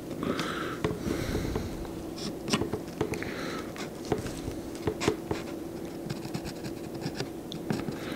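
Pencil scratching along the edge of a speed square as it marks a line on a wooden fence picket, in a few short strokes, with small clicks and knocks as the square and board are handled. A steady low hum runs underneath.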